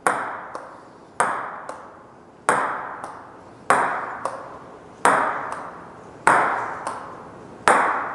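Table tennis ball struck again and again with a rubber-faced racket in short cut strokes meant to load it with backspin. There are seven sharp hits about every 1.3 s, each trailing a short echo and followed about half a second later by a lighter tap.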